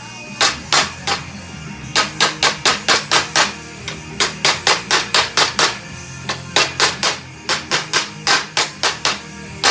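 Hammer blows in quick runs of about four strikes a second, several runs with short pauses between them, over a radio playing music.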